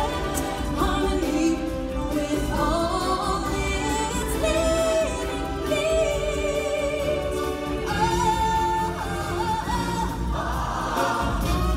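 Live stage-show music: singers and a chorus with instrumental accompaniment, sustained sung notes rising and falling.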